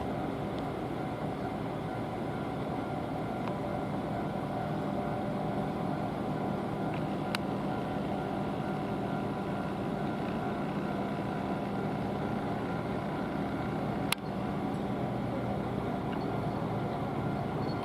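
Steady traffic noise at a busy railway level crossing, with a few constant tones running through it. A sharp click comes about seven seconds in, and another just past fourteen seconds.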